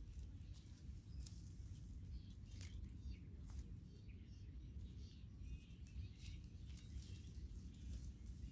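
Faint rustling of shrub leaves and light crackles of twigs as a young macaque grabs and picks through the foliage, over a low steady rumble.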